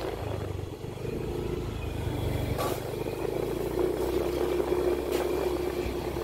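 Motorcycle engine running steadily at cruising speed, heard from on board the moving bike, with two brief clicks, one about halfway and one near the end.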